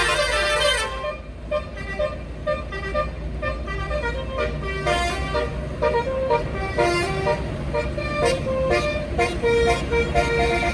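Bus's multi-tone 'basuri' telolet horn playing a quick melody of short stepped notes, with a falling glide near the start, over the low steady rumble of the bus engine.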